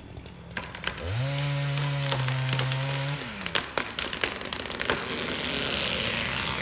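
A chainsaw is revved for about two and a half seconds, finishing the felling cut, then several sharp cracks of wood as the tree starts to go. Near the end comes the rushing swish of its branches through the air as the tree falls.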